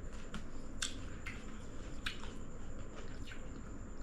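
Eating sounds: a scattered series of short, sharp mouth clicks and smacks from chewing, roughly one every half second, over a low steady room rumble.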